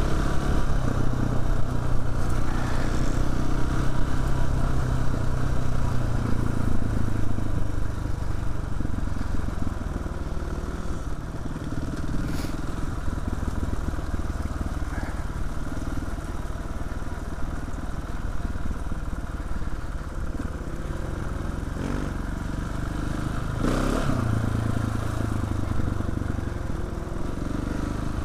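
KTM 690 Enduro R's single-cylinder engine running as the bike rides along a rough track, pulling harder for the first several seconds, easing off through the middle and picking up again near the end. A few sharp knocks from the bike over the track come through now and then.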